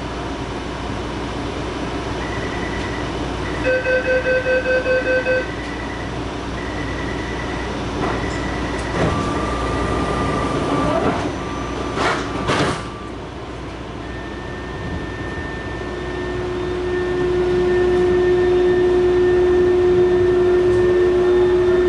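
Taipei Metro Matra VAL 256 train at a station stop: an electronic warning chime beeps rapidly for under two seconds, a few knocks follow as the doors shut, then the traction inverter starts a loud steady whine with rising tones as the train pulls away. The uploader calls this inverter noise abnormal.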